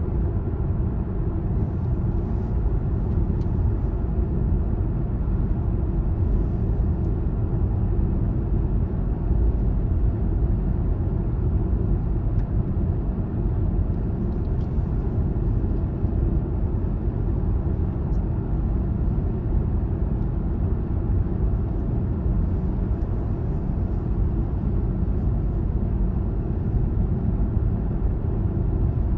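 Steady low rumble of a car driving along the road: tyre and engine noise with no change in pace.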